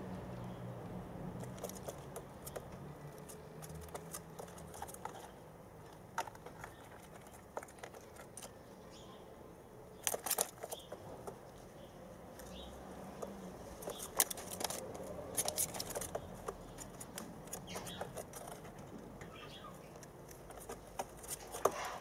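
White doves, an adult and its squab, preening and shifting in a straw nest inside a wire cage: scattered light clicks, taps and feather rustles, with a busier cluster about halfway through and another a few seconds later.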